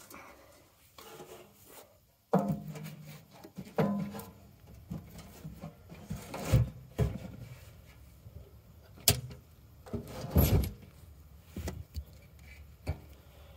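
Scattered clunks and knocks of hands working on a steel crane frame while a box cover is put back on and latched, heard through the metal the phone is resting on. There are about five louder knocks among quieter rubbing and handling.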